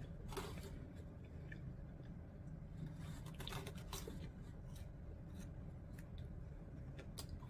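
Faint chewing and mouth sounds of a person eating pizza by hand, with scattered soft clicks and crackles over a low steady background hum.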